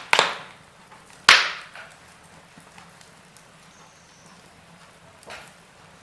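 Wood fire in a fireplace crackling: two loud sharp pops about a second apart near the start, then a softer pop about five seconds in, over a faint steady background.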